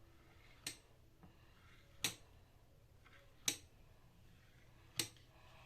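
Four sharp clicks about a second and a half apart as slices of chicken ham are cut into small squares.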